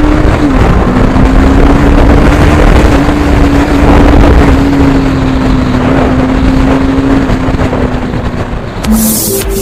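TVS Apache RR310's single-cylinder engine running at a steady cruise, its note holding with slight rises and dips, under heavy wind rumble on the microphone. Music comes in near the end.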